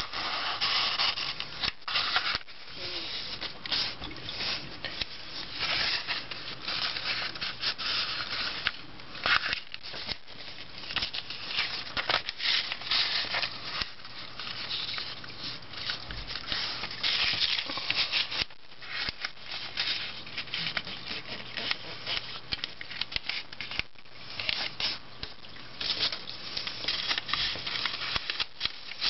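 A sheet of paper rustling and crinkling as it is folded by hand into a boat, with fingers rubbing the creases flat and the paper sliding on a wooden desk, in irregular bursts.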